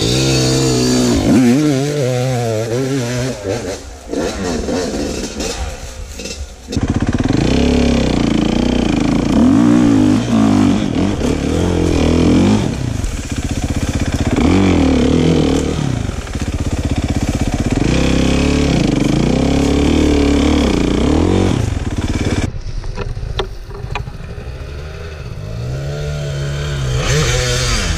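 Dirt bike engines revving hard, the pitch sweeping up and down again and again as the bikes work up a steep, loose forest slope. The revving eases off around four seconds in and again near the end.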